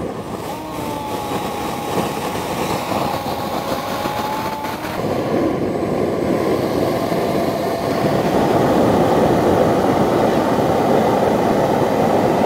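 Homemade jet engine running: a steady rushing blast of burning gas with a thin whine over it that drops slightly in pitch about halfway, growing gradually louder.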